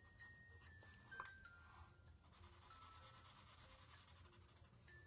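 Very faint rubbing of a felt-tip marker's nib on paper as it colours in, barely above silence. Faint high notes step downward behind it.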